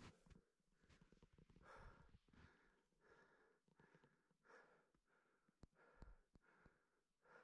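Near silence with faint, quick breathing from someone climbing a deep-snow slope, the breaths coming a little under two a second.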